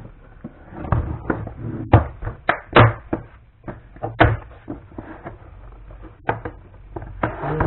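Hard plastic tool case being handled: a string of sharp plastic clacks and knocks as the case is turned over and its snap latches are pushed and pulled. The latches resist because the case is still factory-sealed.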